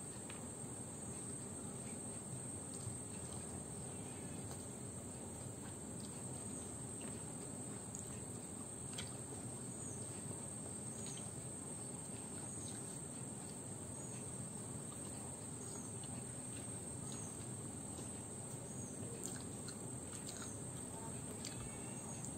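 Crickets making a steady high-pitched drone over an even background hiss. Scattered faint clicks come from someone eating rice by hand.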